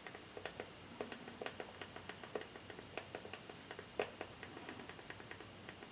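Faint, irregular clicking of remote-control buttons pressed to pick letters on an on-screen keyboard, a few clicks a second with a handful of louder ones.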